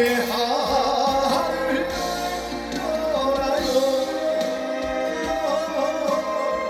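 Male trot singer singing live into a handheld microphone over instrumental accompaniment, his held notes wavering in a wide, steady vibrato.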